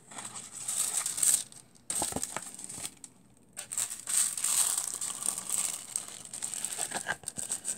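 A thin silver foil-transfer sheet crinkling, with cardstock and paper rustling as they are handled, in irregular bursts with two short pauses.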